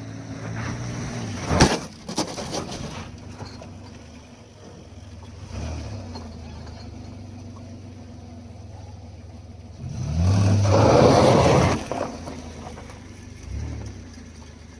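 Metal clanks and knocks from tools and engine parts over a steady low hum. About ten seconds in, a power tool spins up with a rising whine and runs loudly for about two seconds.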